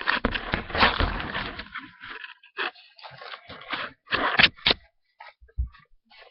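Rustling and scraping handling noise close to the microphone, irregular and dense for the first two seconds, with another loud cluster about four and a half seconds in, then only scattered small rustles.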